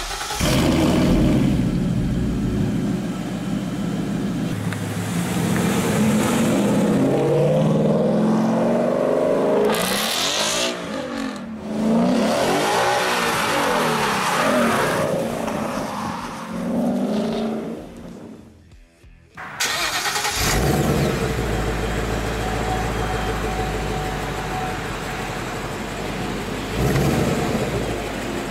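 2015 Mustang GT's 5.0-litre V8 running through a Ford Racing exhaust made with Borla, revving up and down hard again and again as the car is driven and slid. About two-thirds in the sound drops out briefly. Then a steadier V8 idle follows, recorded at the tailpipes of the stock exhaust, with a rev near the end.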